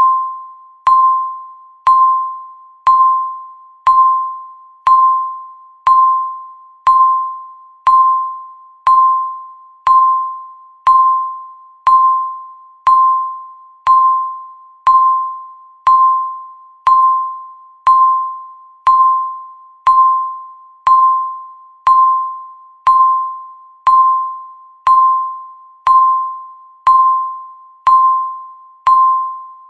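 Countdown timer beep sounding once every second: a single mid-pitched electronic tone, struck sharply and fading quickly like a small bell, repeated identically.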